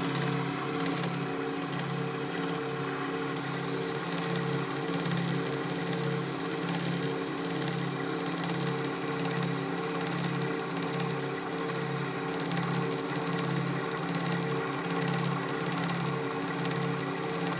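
Metal lathe running, its spindle spinning a chuck while a turning tool machines it: a steady hum that pulses evenly.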